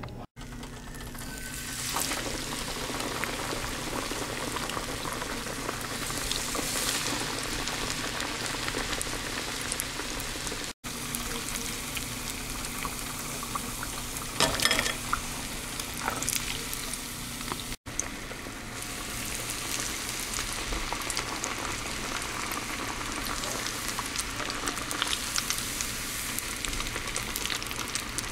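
Breaded okara (soy pulp) patties deep-frying in hot oil in a stainless steel pot: a steady sizzle and bubbling, with a brief louder spell about halfway through and three short cut-outs where the recording is edited.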